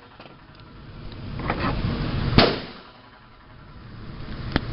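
Gunshots on a shooting range: one loud shot about two and a half seconds in with a short echoing tail, and a sharper, shorter crack near the end. The shots are heavy and sound close to a .30-30 rifle's.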